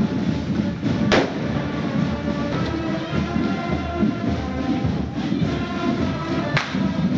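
Procession band music with held notes over a dense low din, cut by two sharp bangs, one about a second in and one near the end.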